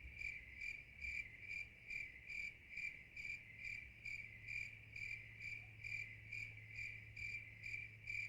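A cricket chirping steadily, about two chirps a second, over a faint low hum.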